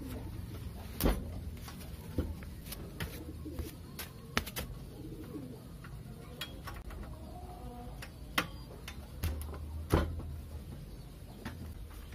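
Pigeons cooing, with sharp knocks and clicks from the table and cardboard being handled. The loudest knocks come about a second in and again near the end.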